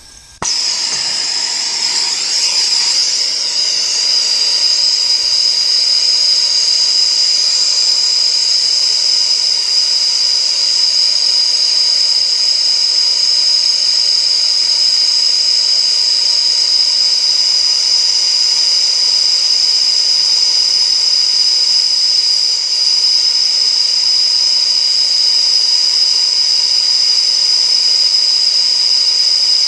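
Air-acetylene torch, burning straight acetylene with no oxygen, catching about half a second in and then burning with a loud, steady hiss as its flame heats a steel bar.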